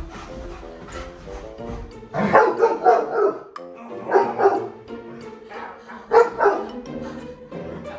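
Bernese Mountain Dog barking in three bursts of several barks each, about two, four and six seconds in.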